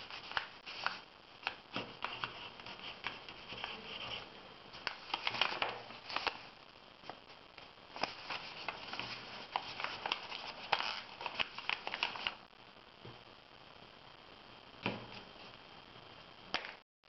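A sheet of paper being handled and folded by hand on a tabletop: short rustles, crackles and creasing sounds of the paper with light taps, busiest in the middle and sparser near the end.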